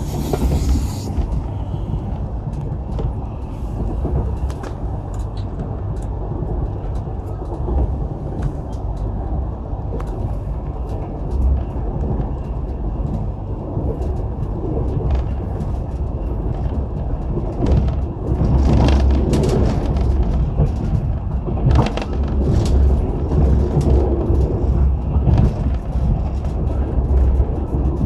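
Running noise heard from inside a moving vehicle: a steady low rumble with frequent small clicks and rattles, growing louder and rougher about two-thirds of the way in.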